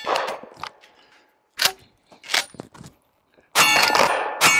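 Dickinson Commando 12-gauge pump-action shotgun firing: a shot's ringing tail fades at the start, two short clacks of the pump action follow, then two loud shots close together near the end.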